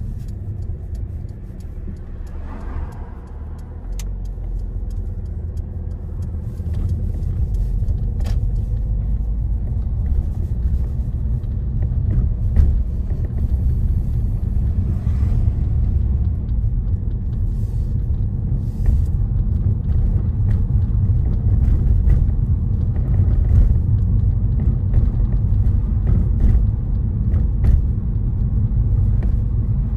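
Car on the move: steady low rumble of engine and road noise, growing louder about four seconds in.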